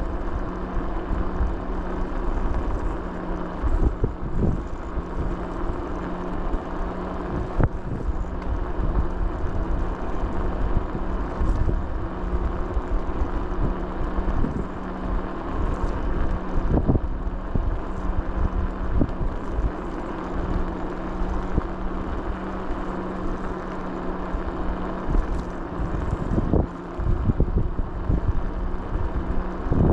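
A vehicle's engine running at a steady speed under a low rumble, with a few knocks and jolts along the way.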